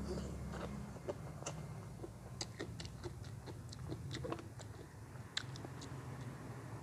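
A person chewing crisp food close to the microphone: irregular sharp crunching clicks. A low hum stops about a second in.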